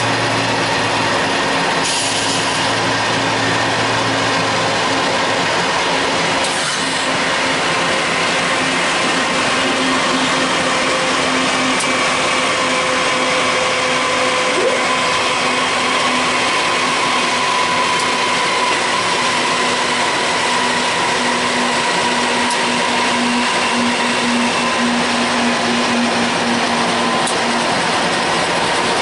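GE C44-9W diesel-electric locomotive running at speed under power: a steady engine drone with a few held tones that drift slowly in pitch, mixed with a constant rush of air from a car driving alongside.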